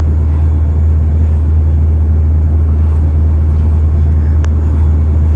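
Car driving: a steady low rumble of engine and road noise, as heard from inside a moving car, with a faint click about four and a half seconds in.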